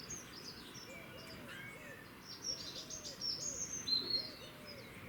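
Songbirds chirping and whistling, busiest and loudest about three to four seconds in, over a steady run of short low calls repeated a few times a second.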